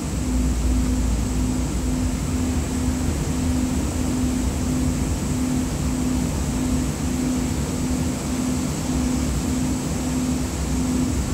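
Cabin ride noise of a Siemens S200 light rail vehicle under way: a steady low rumble, with a hum that pulses about twice a second and a faint steady high whine above it.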